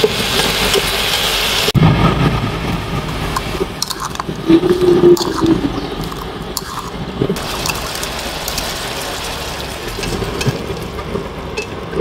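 Cooking sounds from a wok of duck and ginger: a sizzling hiss as the pieces are stirred with chopsticks, then after a sudden cut, scattered clicks of utensils and the quieter sound of liquid as the braise cooks.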